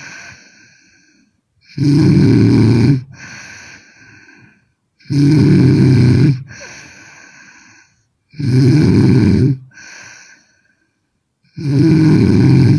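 A woman snoring hard in a steady rhythm: four loud snores about three seconds apart, each lasting just over a second and followed by a softer breath out.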